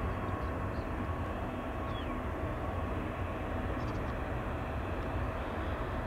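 De Havilland Canada Dash 8-400's twin Pratt & Whitney PW150A turboprops and propellers during landing: a steady low rumble with a few faint steady tones over it.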